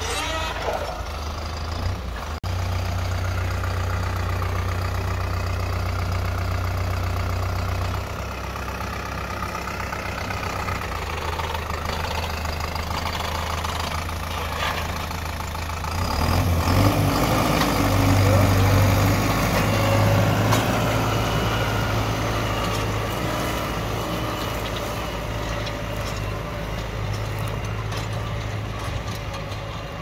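Tractor diesel engine running steadily; about 16 seconds in it gets louder and its pitch rises briefly as it revs up, then it runs on steadily at the higher level.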